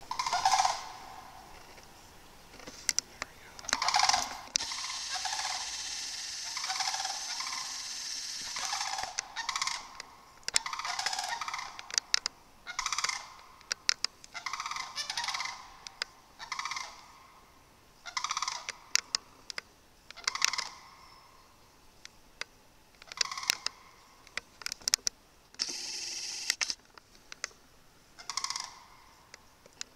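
Sandhill crane calls: repeated bugling calls every one to two seconds, with a longer unbroken run of calling in the first third.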